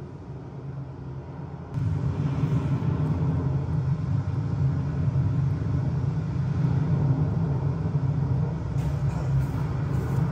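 A steady low rumble that jumps louder about two seconds in and then holds steady.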